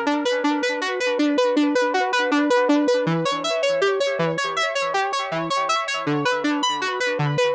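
Background music: a fast run of repeated synthesizer or keyboard notes over a pulsing bass line.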